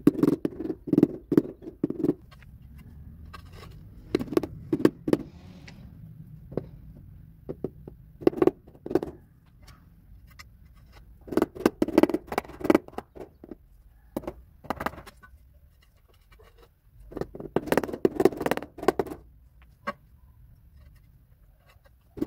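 Rubber mallet tapping ceramic floor tiles down into wet tile adhesive, in bursts of several quick knocks every few seconds with short pauses between.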